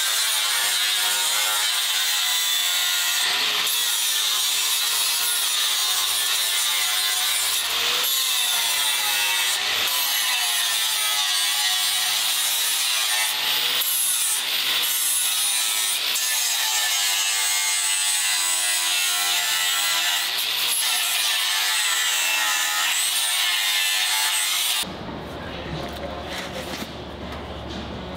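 Angle grinder grinding the steel frame rail of a 1936 Ford, its motor whine dipping and recovering as the disc bites into the metal. There are a few brief breaks, and it stops near the end.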